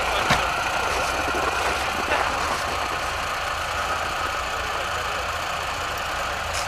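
Car engine idling steadily, with a single sharp knock about a third of a second in.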